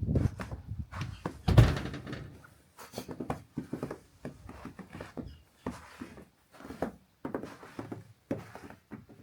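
Footsteps through snow, about two a second, with a heavier thump about a second and a half in.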